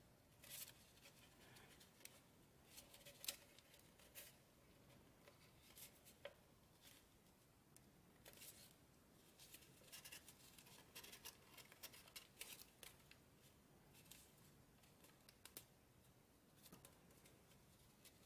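Faint, irregular crinkling and crackling of origami paper being pinched, creased and shaped between the fingers, in short crisp bursts scattered throughout.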